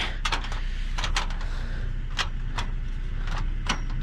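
Irregular sharp clicks and knocks, about seven in four seconds, from hands handling and pressing at a small appliance, over a steady low engine rumble.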